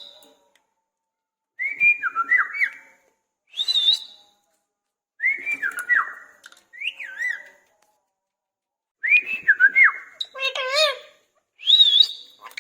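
Indian ringneck parrot whistling: short phrases of quick up-and-down pitch glides, about seven in all with gaps of a second or so between them, one harsher, buzzier call about ten seconds in.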